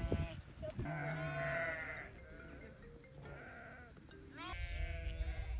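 Flock of sheep bleating, several calls overlapping. A steady low rumble comes in near the end.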